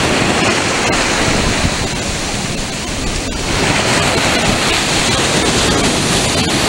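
Ocean surf breaking and washing up around a sand pile, a steady rush of foaming water with wind rumbling on the microphone; the rush eases slightly about two to three seconds in, then swells again.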